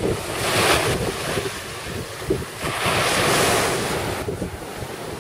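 Small sea waves breaking and washing in at the shore, two surges about two seconds apart, with wind buffeting the microphone underneath.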